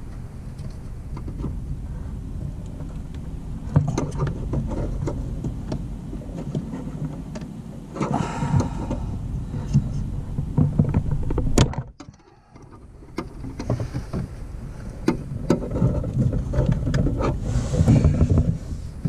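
Screwdriver scraping, clicking and knocking against the plastic retaining tab of a Jeep TJ heater blower motor as it is pried at under the dash, with rustling between the clicks. The sound drops out briefly about twelve seconds in.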